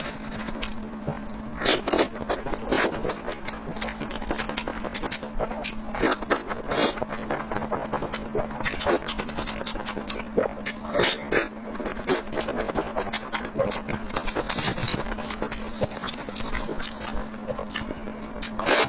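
Close-miked eating sounds: chewing and mouth noises with irregular clicks and scrapes, over a steady low hum.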